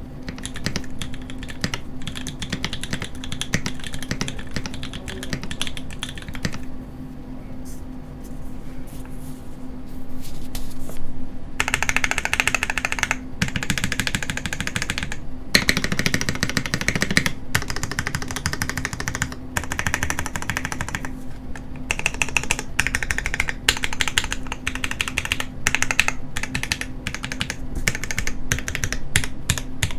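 Typing on a Hand Engineering Haus custom mechanical keyboard with lubed Pewter switches, an FR4 plate and GMK keycaps: a rapid stream of keystroke clacks that thins out for a few seconds about a quarter of the way in, then comes back in louder bursts of fast typing.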